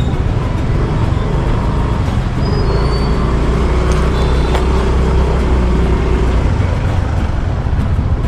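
Motorcycle engine running as the bike is ridden slowly, a steady low rumble with a deeper hum swelling for a few seconds mid-way.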